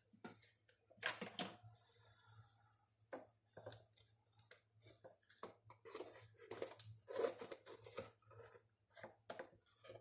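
Faint, scattered handling noises: short rustles, taps and light scrapes of paper and small objects being picked up and moved, over a faint steady low hum.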